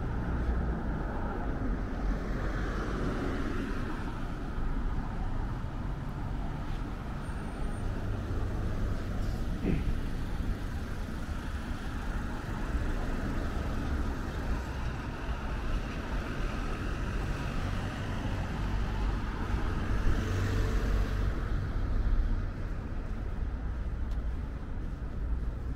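Road traffic: cars passing in a steady rumble, with a couple of vehicles swelling louder and fading as they go by.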